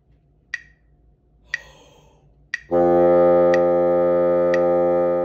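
Sharp clicks about once a second, a soft breath drawn in, then a bassoon holding one steady low note from about two and a half seconds in, with the clicks continuing over it.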